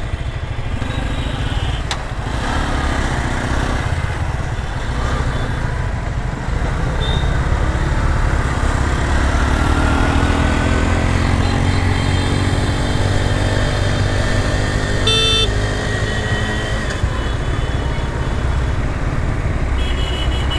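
Suzuki GSX-R sport motorcycle running under way in town traffic, its engine note rising in pitch as it picks up speed around the middle, mixed with wind and road noise. A vehicle horn honks briefly about 15 seconds in and again at the very end.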